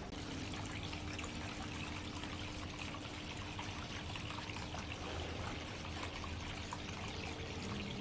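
Water trickling and splashing steadily down the tiers of a six-tier polyresin rock cascade fountain, with a faint steady hum underneath.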